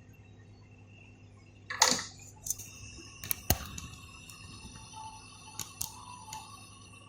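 Soldering on a PS4 Pro's power-supply connector: a short hiss as the iron meets solder and flux, then a handful of light clicks and taps of tools on the board, over a steady electrical hum.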